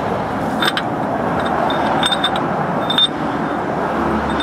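Cup-type oil filter cap wrench clinking against the oil filter housing cap as it is worked onto it: a few light metallic clinks over about three seconds, over a steady background rush.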